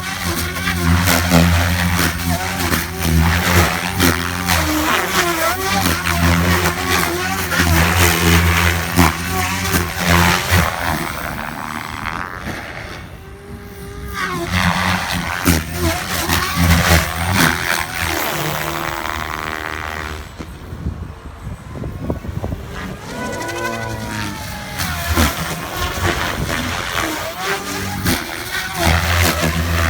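Electric RC helicopter, a Goblin 570 with an Xnova motor, in flight: its rotor blades and motor whine rise and fall in pitch as it manoeuvres and passes, fading briefly twice.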